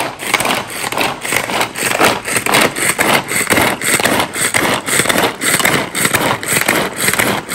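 Pull-cord manual food chopper yanked over and over, about three pulls a second: each pull spins the blades, which whirr and chop red onion and green chillies against the plastic bowl.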